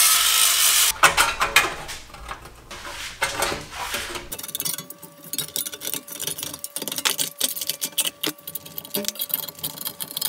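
A cordless grinder cuts the thin sheet-metal double-DIN mounting box with a loud, steady cutting noise that stops about a second in. A few short bursts of cutting follow. From about four seconds in come light metallic clicks and taps as the bent sheet metal is worked with pliers.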